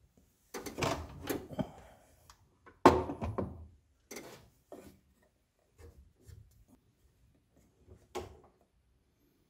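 Clunks, knocks and rubbing as a table saw's overhead blade guard is swung down over the blade and the wooden workpiece is handled on the saw table. The sharpest knock comes about three seconds in, with scattered lighter taps after it and one more knock near the end.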